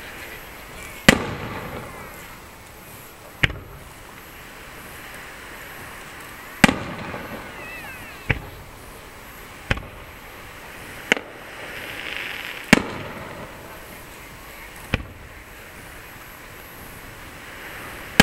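Aerial firework shells bursting, about nine sharp bangs spaced one to three seconds apart, some echoing on after the bang.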